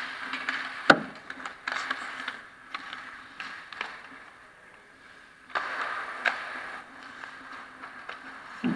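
Ice hockey skates scraping and carving on the ice in front of the net, with sharp stick-and-puck clacks, the loudest about a second in. A dull thump near the end.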